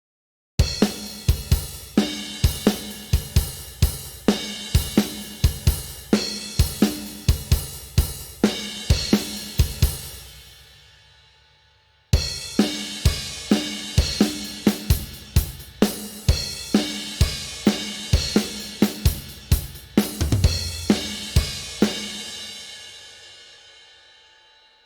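Sampled acoustic drum kit from the Stigmatized Drummer Kontakt library playing two drum grooves one after the other, with kick, snare, hi-hat and cymbals. Each groove lasts about ten seconds and ends on a cymbal left to ring out and fade, with a brief silence between them.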